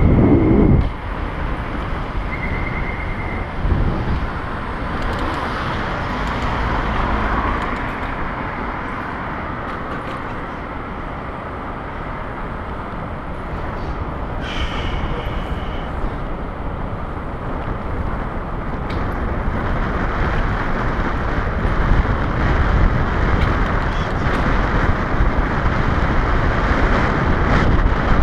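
Wind buffeting the microphone of a camera on a moving bicycle, with tyre and street-traffic noise. There is a loud bump right at the start and a brief high squeal about halfway. The wind noise grows louder toward the end.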